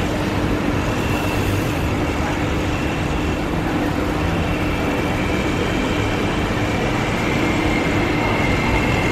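SP1900 electric multiple-unit train standing at a platform, its equipment giving a steady hum. Near the end a whine sets in as it starts to pull away.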